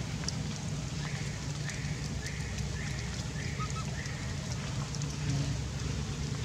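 An animal call repeated five times, about one every 0.7 seconds, starting about a second in, over steady outdoor background noise with a low hum.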